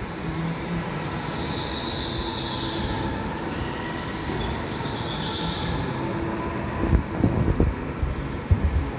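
Go-karts running on an indoor track: a steady mechanical hum with two stretches of high squealing, and a few short knocks near the end.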